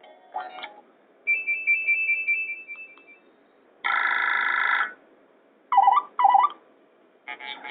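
Nokia 5700 XpressMusic ringtones played through a Nokia 220 4G's speaker: a run of short, different ringtone snippets with brief gaps between them. The snippets include a high alternating beep, a roughly one-second chord and two quick chirps.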